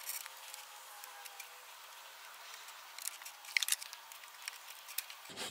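Faint handling noise from pliers working a hose clamp on a radiator overflow hose: light scraping, then a few short sharp metallic clicks between about three and five seconds in.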